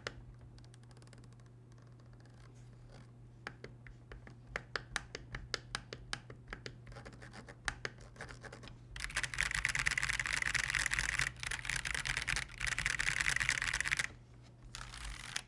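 Typing on an Akko PC75B Plus mechanical keyboard: scattered keystrokes that come quicker and quicker, then fast continuous typing from about nine seconds in, with brief breaks near the end. A low steady hum sits underneath.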